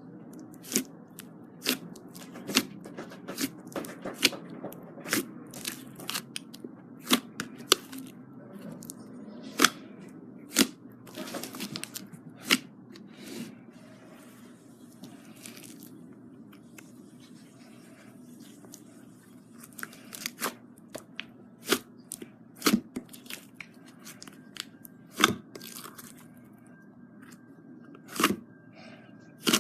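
Glitter slime being squeezed and poked by hand, making irregular sharp pops and clicks as air pockets burst, with a short spell of crackling about eleven seconds in.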